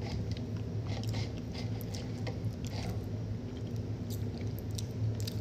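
Quiet eating sounds of two people tasting cake: scattered small clicks of metal forks on clear plastic plates and mouth noises of chewing, over a steady low room hum.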